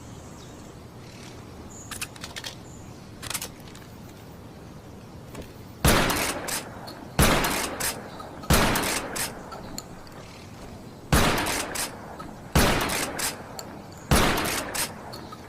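Camara US6 shotgun sound effect: a few light clicks, then six loud shots in two sets of three, about one and a half seconds apart. Each shot is followed by a quick run of smaller clicks.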